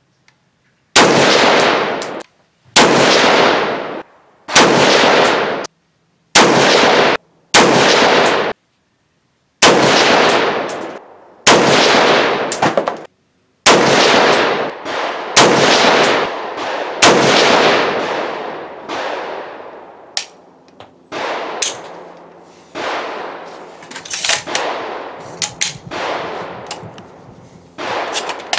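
6.5 Creedmoor Axelson Tactical Hurricane rifle firing single shots, ten of them about two seconds apart, each followed by a long ringing echo that is often cut off abruptly. From about 20 seconds in, a closer-spaced run of quieter shots follows.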